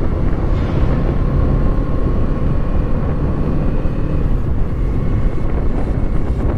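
Kawasaki Eliminator SE's parallel-twin engine running steadily while riding, mixed with wind and road noise on the microphone.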